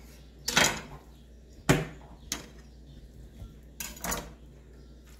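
Kitchen clatter: about five irregular knocks and clinks of utensils and dishes, the loudest a little under two seconds in.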